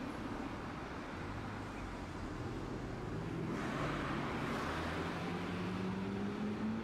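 Street traffic noise, then from about three seconds in a streetcar's traction motor pulling away: a whine that rises slowly and steadily in pitch as it accelerates.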